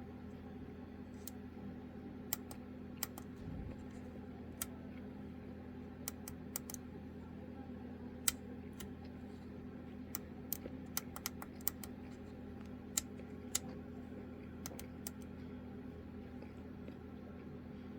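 Scattered sharp clicks, some single and some in quick runs, over a steady low hum.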